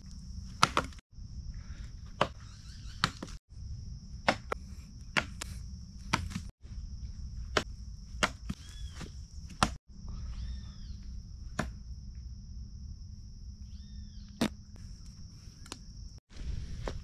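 Outdoor camp ambience: a steady high insect drone over a low rumble, with scattered sharp taps and a few short chirps near the middle. The sound cuts out briefly several times.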